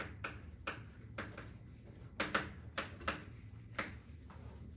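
Chalk writing on a blackboard: about a dozen short, sharp taps and scratches at irregular spacing as letters are written.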